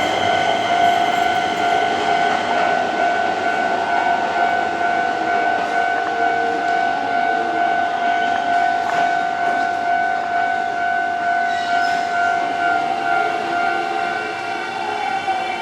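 Electric commuter train at a station, its electrical equipment giving a steady high-pitched whine that holds one pitch and dips slightly near the end, over a rumble of train noise.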